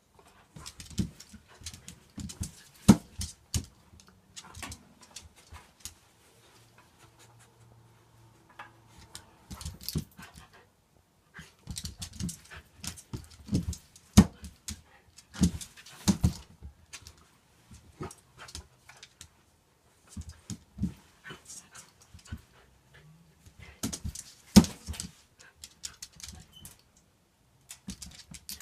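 A dog whimpering and whining on and off, with many sharp clicks and knocks in between, as it tries to get at toys it wants.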